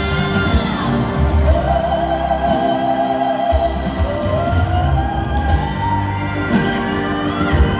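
Two female vocalists singing long, wavering held notes live over a rock band's accompaniment, the melody stepping higher about halfway through, heard from the arena stands.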